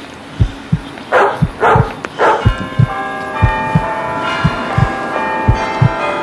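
A heartbeat thumping about once a second in a steady lub-dub. Three dog barks come between one and two and a half seconds in. Church bells then start ringing, several bells overlapping.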